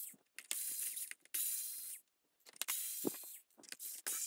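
Makita DF001DW 3.6 V cordless screwdriver whirring in a string of short runs, each under a second with brief pauses between, as it backs screws out of the tank's hull.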